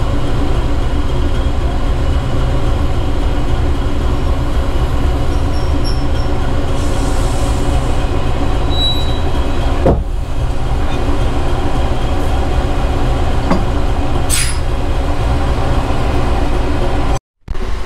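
Diesel locomotive engine running steadily as a small diesel shunter comes up to the coach to couple on. There are a couple of short knocks, about ten and fourteen seconds in.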